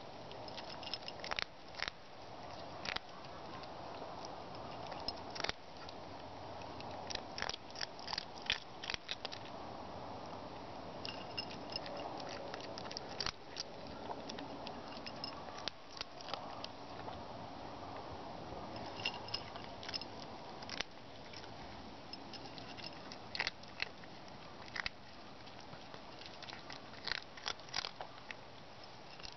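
A small cat eating its food, with irregular crisp crunches as it bites and chews, in uneven clusters.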